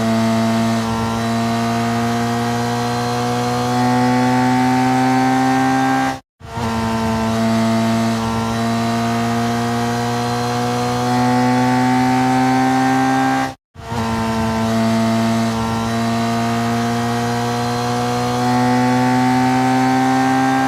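Racing motorcycle engine running at high revs, its buzzy note climbing slowly in pitch for about six seconds and then cutting off suddenly. The same run repeats three times, each one stepping up in loudness partway through.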